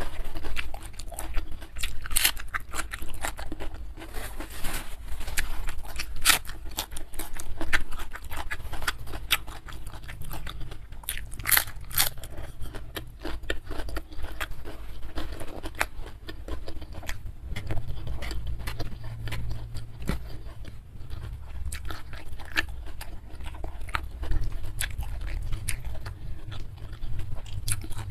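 A person eating close to the microphone: steady wet chewing, with crisp crunches from bites of raw cabbage leaf. A few loud crunches fall in the first half.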